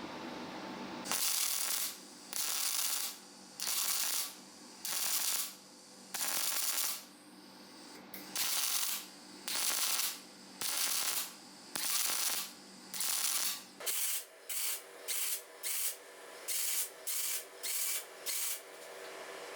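Repeated hissing, scraping strokes, about one a second, turning shorter and quicker about two-thirds of the way through.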